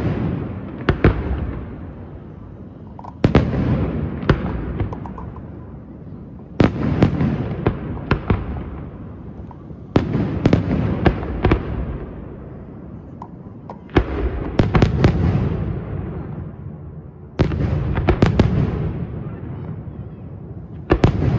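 Aerial firework shells bursting in a display, seven in a row about every three and a half seconds. Each is a sharp bang followed by a few smaller reports and a rolling echo that dies away before the next.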